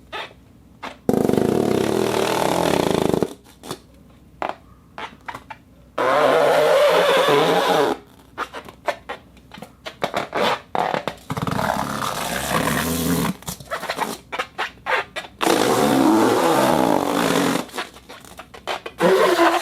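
Rubber balloon rubbed against a rosin plate: four friction sounds of about two seconds each, with a pitch that wavers, and short clicks and taps between them.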